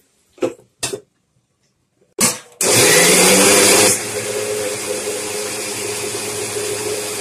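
Electric mixer grinder with a stainless steel jar grinding soaked rice, lentils and dried red chillies with water into a coarse adai batter. A few knocks as the jar and lid are handled, then the motor starts about two and a half seconds in, louder for its first second or so before settling to a steady, lower run.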